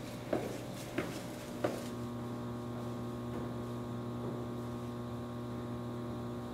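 Three footsteps on stairs, evenly spaced about two-thirds of a second apart, then a steady electrical hum.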